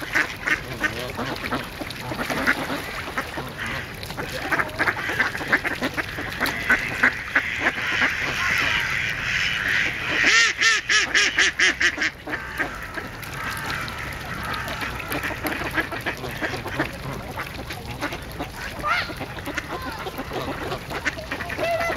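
A flock of mallards quacking and chattering without a break. About halfway through comes a fast run of about eight loud quacks.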